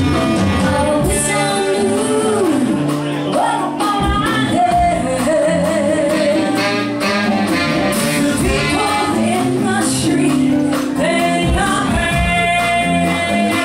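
Live funk band playing with a woman singing lead: held, wavering sung notes over electric guitar, bass, keyboards and drums.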